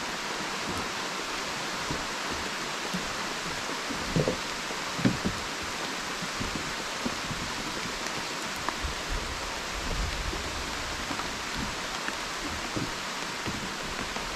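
Steady rush of water cascading down a waterfall, with a few short low thumps about four and five seconds in.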